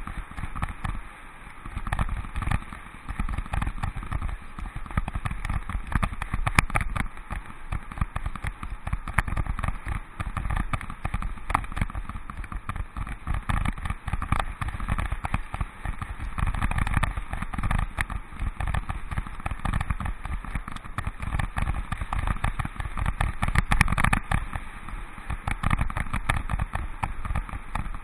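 Mountain bike ridden over a bumpy dirt and gravel track, heard from a bike-mounted camera: dense, irregular rattling and knocks over a steady rush of tyre and wind noise.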